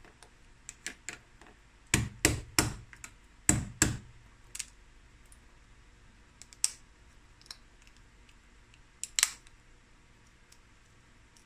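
Metal ginger pounder tapping a boiled crab leg to crack its shell: a run of sharp knocks, light at first, then five hard strikes about two to four seconds in. A few single cracks follow as the broken shell is pulled apart by hand.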